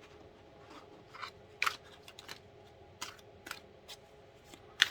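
Scattered light clicks and taps from handling objects on a desk, about a dozen, with the sharpest click just before the end.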